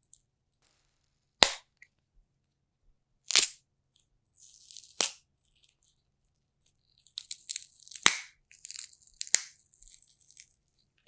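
Fresh celery stalks being snapped and broken: five sharp cracks, with fibrous crackling and tearing between the later ones. It is a Foley stand-in for a fireplace crackling or bones breaking.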